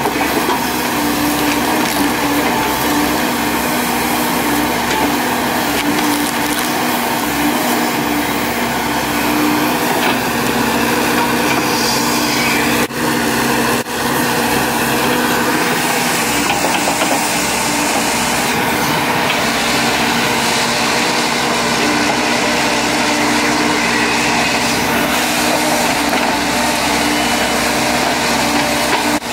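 Volvo EC210D crawler excavator's diesel engine running steadily under digging load, with the bucket crunching and snapping roots and brush in the soil.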